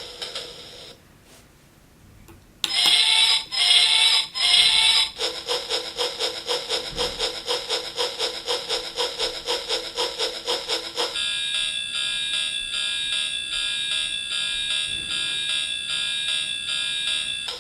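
Synthesized train sound effects from a four-sound electronic sound kit. A short ticking tail and a brief lull give way to three loud toots, each falling in pitch. Then comes a fast, evenly repeating electronic pulse for about six seconds, and then a steady alarm-like tone of several pitches that warbles slightly.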